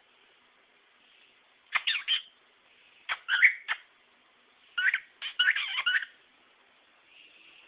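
Cockatiel giving short, sharp chirping calls in three quick bursts, the first about two seconds in and the longest near the middle.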